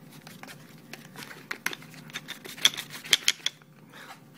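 Fingers picking and pulling at a small cardboard battery box, making a run of quick crackling clicks that are loudest about three seconds in and stop soon after.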